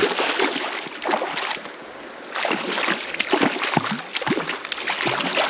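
A hooked brown trout thrashing at the surface of a creek, throwing up repeated irregular splashes as it is fought in, with a short lull about two seconds in.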